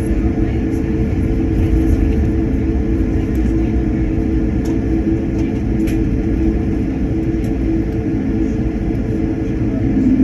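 Airliner cabin noise while the plane taxis before takeoff: the jet engines make a steady hum over a low rumble, with a few faint rattles from the cabin.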